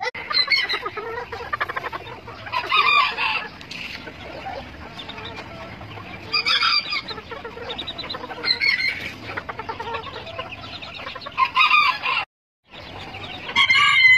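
Roosters crowing and chickens clucking: short loud calls every two to three seconds, with a brief break near the end.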